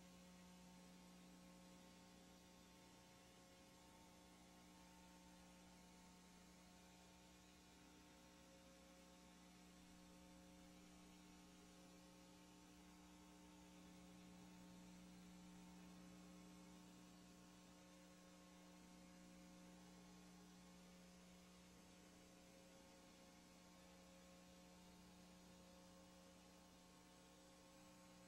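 Near silence: a faint steady hum with light hiss and no other sound.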